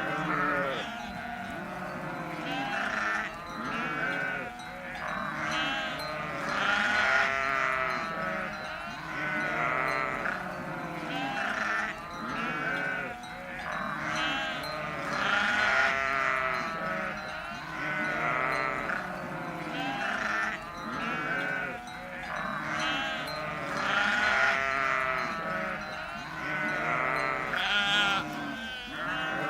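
A flock of sheep bleating, many wavering calls overlapping one another without a break.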